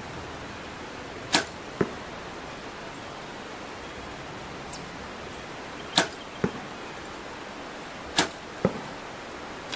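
Mathews Title 38 compound bow fired three times. Each release is a sharp crack, followed under half a second later by a duller thud of the arrow striking the target.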